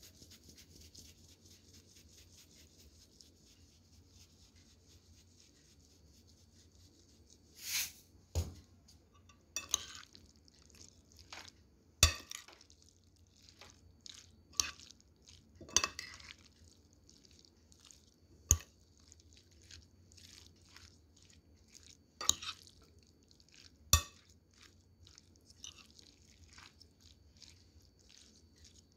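A metal spoon stirring mayonnaise-dressed shredded cabbage and carrot coleslaw in a glass bowl: soft wet squelching, with sharp clinks of the spoon against the glass, about ten of them, starting several seconds in.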